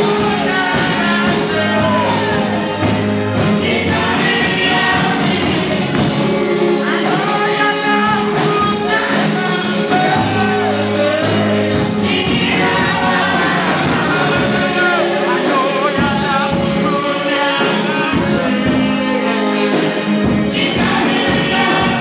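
Gospel music: voices singing over a steady beat.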